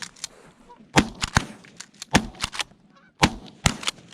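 A rapid volley of shotgun shots from several hunters firing at incoming geese, about eight or nine blasts in three seconds, with geese honking between the shots.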